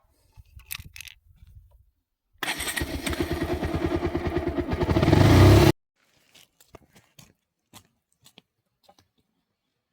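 A small petrol engine runs with an even firing pulse, growing steadily louder for about three seconds before cutting off abruptly. Faint clicks and knocks come before and after it.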